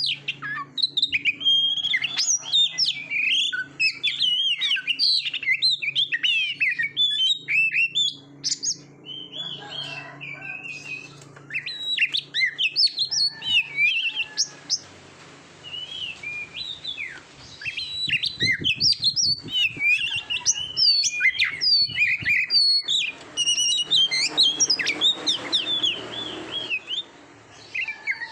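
Oriental magpie-robin (kacer) singing a fast, varied song of short whistled notes, sweeps and chattering phrases, with a couple of brief lulls. A low steady hum sits underneath.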